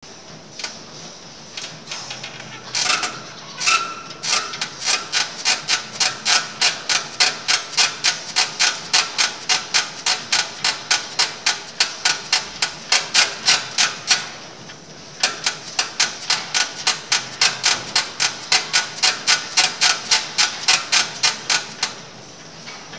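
Gym leg machine worked on its full weight stack in rapid short reps: a sharp metal clack on each rep, about three a second, with a break of about a second midway. The first few seconds hold scattered slower clanks, two of them briefly ringing.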